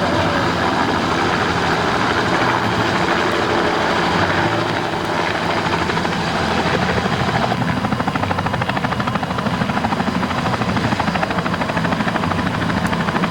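Helicopter sound: a steady engine drone with a rapid, even rotor chop that becomes clearer about halfway through.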